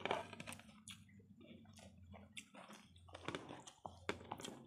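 Close-up chewing of chicken biryani eaten by hand, with many short irregular clicks from mouths and fingers working through the rice, over a low steady hum.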